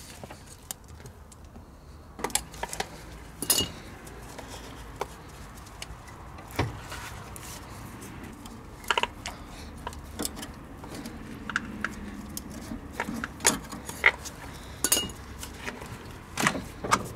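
A dozen or so sharp, irregularly spaced metallic clicks and clinks of pliers and hand tools against a car driveshaft as the old rubber CV boot is cut and worked off.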